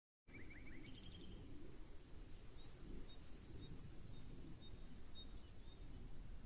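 Low, uneven rumble of wind on the microphone, with small birds chirping: a quick run of falling chirps just as the sound cuts in, then scattered thin high notes.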